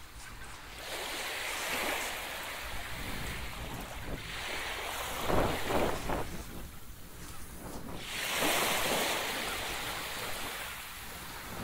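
Small surf breaking and washing up the beach in surges about every three seconds, with wind gusting on the microphone.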